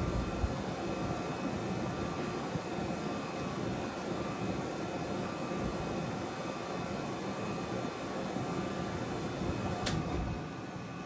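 2007 1.5-ton Trane XL14i heat pump outdoor unit running steadily, its compressor and Genteq ECM condenser fan making a humming whoosh. Near the end there is a sharp click and the running sound drops as the unit shuts down.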